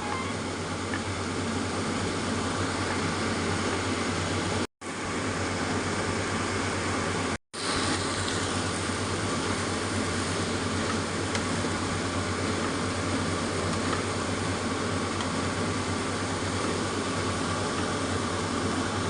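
A steady mechanical hum with hiss, like a fan or small machine running, that cuts out suddenly for a moment twice.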